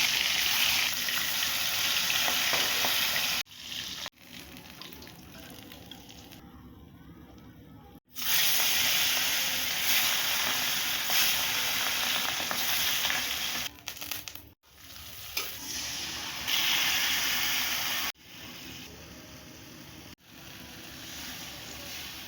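Food frying in hot oil, a steady sizzle. It runs loud for the first few seconds and again in the middle, quieter between, and breaks off abruptly at several points where clips are joined.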